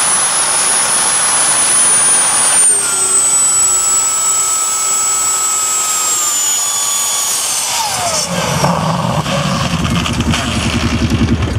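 Home-built turbocharger jet engine running at full noise with a high turbine whine. The whine drops in pitch twice, then the engine goes rough with a rapid low pulsing rumble as flame blows from the jet pipe, and it dies near the end. The turbocharger's rear bearing failed on this run.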